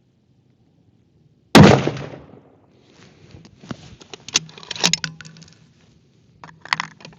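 A single shot from a Ruger Precision Rifle in .308 about a second and a half in, sharp and loud with a short decaying tail, followed by a run of clicks and knocks as the rifle is handled.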